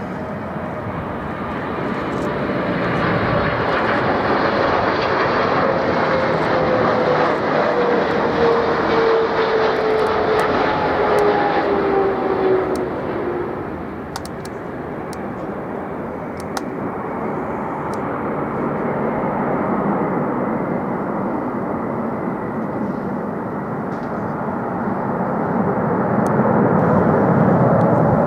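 Jet airliner flying past on approach to land, a steady jet noise with an engine whine that falls in pitch as it goes by. The noise eases about halfway through and swells again near the end.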